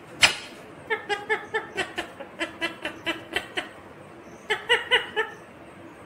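Indian ringneck parakeet vocalising: one short, sharp call just after the start, then a run of short, evenly spaced pitched syllables, about four a second, a pause, and a shorter run near the end.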